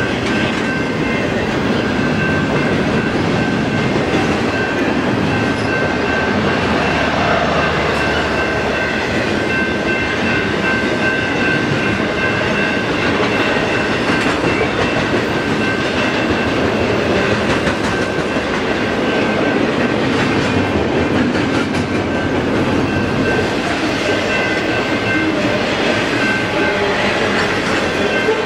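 Cars of a long intermodal freight train rolling past: a steady rumble and clatter of steel wheels on the rails, with a steady high-pitched ringing over it.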